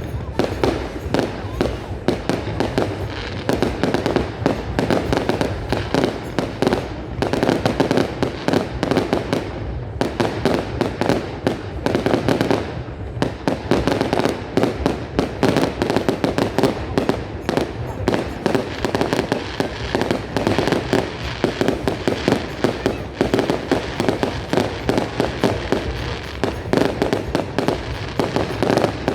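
Fireworks exploding in a dense, continuous barrage, many bangs and crackles a second, with brief lulls every few seconds.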